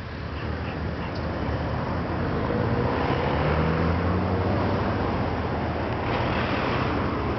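An engine running steadily, its hum growing louder over the first two seconds and then holding.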